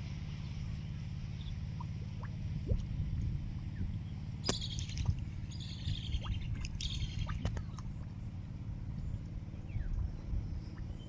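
Water splashing and dripping in short bursts, twice, over a steady low rumble, as hands work in the shallow water of a drained canal bed.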